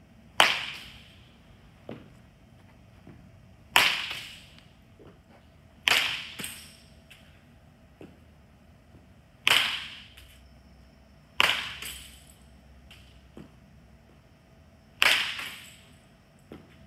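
Baseball bat striking the ball six times in batting practice, one sharp crack every two to four seconds, each ringing out briefly in the cage, with faint clicks between the hits.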